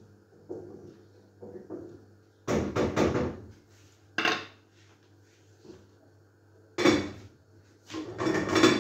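Pots and pot lids clattering on a gas stove in four separate bursts of knocks and scrapes, the loudest near the end as a lid is handled on an enamel pot.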